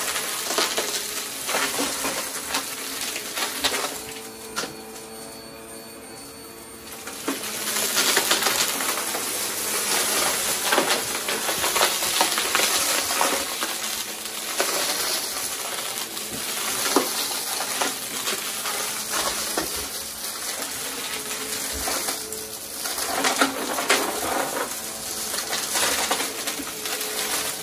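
Bagless upright vacuum cleaner running over carpet and sucking up coins and small debris, a continuous crunching rattle of bits clattering through the nozzle into the dust cup over the motor hum. About four seconds in the rattling eases to the plain motor hum for a couple of seconds, then the clatter picks up again.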